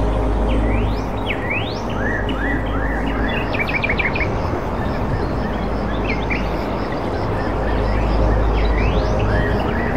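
Birds chirping: repeated short calls that sweep upward in pitch, with a quick run of short notes about four seconds in, over steady outdoor background noise and a low rumble.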